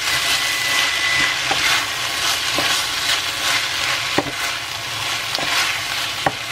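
Fideuá noodles, pork and tomato sofrito sizzling in an enamelled steel paella pan as they are stirred with a wooden spoon, the noodles frying in the sofrito before the broth goes in. A steady sizzle runs throughout, with a few sharp knocks of the spoon against the pan.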